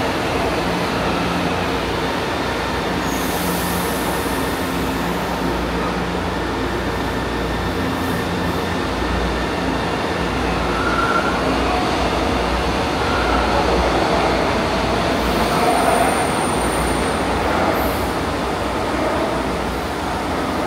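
São Paulo Metro Line 2 train running through the station: a steady rolling rumble with a faint hum, and a thin high wheel squeal around fifteen seconds in.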